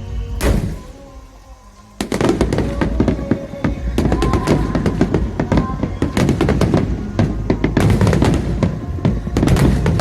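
Nagaoka Phoenix fireworks barrage: one bang about half a second in, then from two seconds in a dense, continuous volley of crackling bursts and booms. Music plays underneath.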